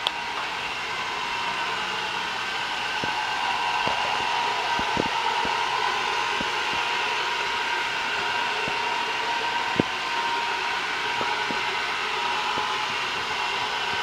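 iRobot Roomba robot vacuum cleaner running across a tile floor: a steady motor whine, with a few short sharp clicks now and then, the loudest about ten seconds in.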